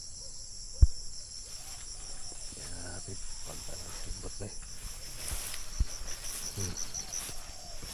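Insects chirping in a steady, high, rapidly pulsing trill, with a few dull low thumps; the loudest thump comes about a second in.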